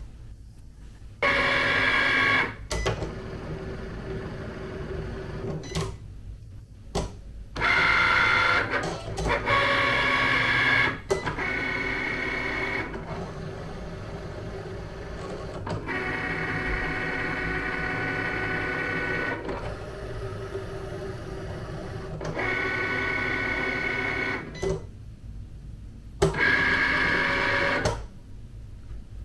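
Cricut Explore Air 2 cutting machine scoring and cutting a sheet of light cardstock: its motors whine as the carriage and mat move, in repeated stretches of one to a few seconds that stop and start several times.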